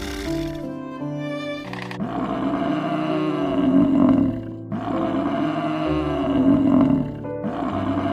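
A big cat roars: a long, drawn-out roar about two seconds in, a second one right after it, and a third starting near the end. Background music plays throughout.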